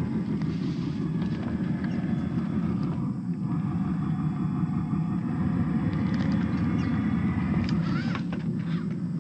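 Traxxas TRX-4 RC crawler's stock brushed electric motor and gearbox whining as it crawls slowly over logs and brush, with a short rising whine about eight seconds in as the throttle is opened, and light crackles from the tyres on twigs.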